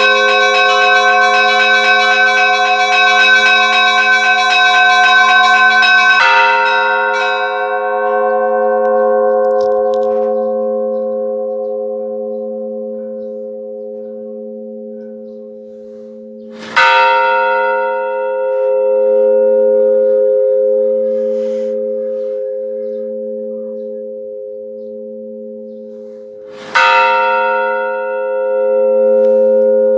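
Church bells ringing: a rapid peal of several bells for about six seconds. Then a single large bell is struck about every ten seconds, each stroke ringing out into a long, slowly fading hum.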